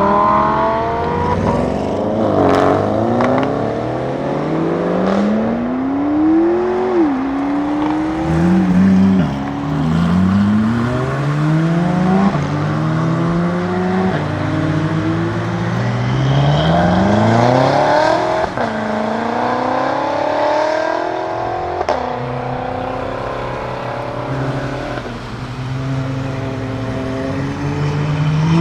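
Audi RS7 Sportback C8's twin-turbo V8 through an Akrapovic cat-back exhaust, accelerating hard again and again: the pitch climbs and drops back at each upshift, with a few sharp exhaust cracks.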